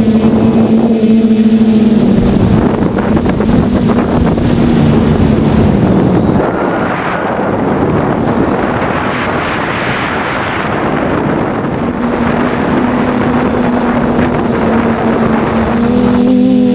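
Multirotor drone's brushless motors (Tiger Motor 2216 800kv) and 10x5 propellers humming steadily, heard from the onboard camera, with wind rushing over the microphone. In the middle the motor hum eases and the wind rush takes over; near the end the hum comes back strong.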